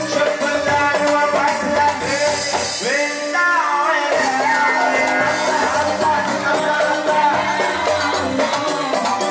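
Background music: a song with a sung melody over light percussion.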